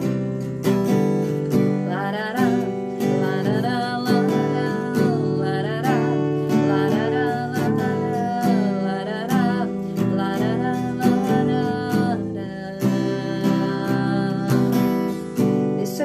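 Acoustic guitar strummed steadily, with a woman singing over it.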